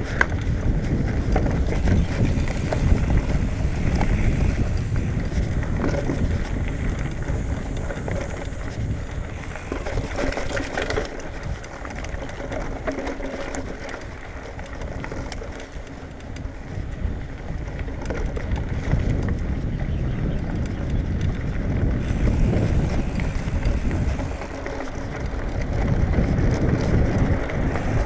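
A 2019 Marin Bobcat Trail 5 hardtail mountain bike rolling along a dirt trail over dry leaves: a steady low tyre and frame rumble with rattles, swelling and easing with speed.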